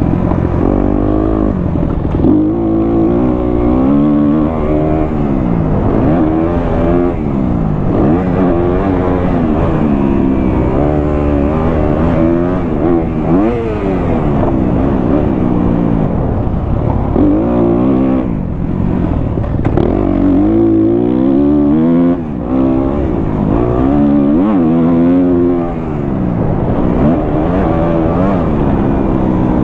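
A 2023 Kawasaki KX250F's four-stroke single-cylinder engine, breathing through a Pro Circuit exhaust, being ridden hard: its pitch climbs and drops again and again as the rider goes through the gears and rolls off the throttle, with a couple of brief drops in level about two-thirds of the way through.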